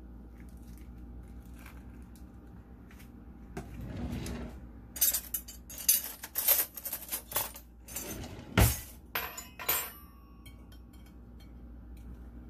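Ceramic plate and metal fork clinking and clattering against a stone countertop: a run of sharp clinks over about five seconds, with one heavier knock near the end. A low steady hum sits under it.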